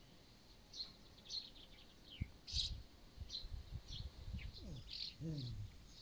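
Small birds chirping in short, repeated chirps, some of them quick falling notes, with soft low thuds underneath.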